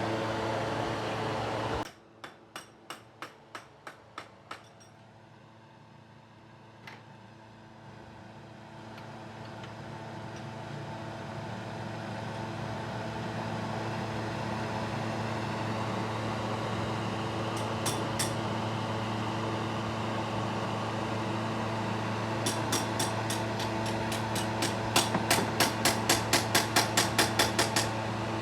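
A steady machine hum with sharp taps over it: seven spaced taps a couple of seconds in, then a quick run of about fifteen taps near the end.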